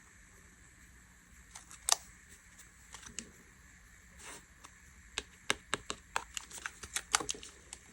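Dessert slime being squeezed and pressed by hand, giving sharp little clicks and pops as air pockets burst, a few at first and then several a second from about five seconds in.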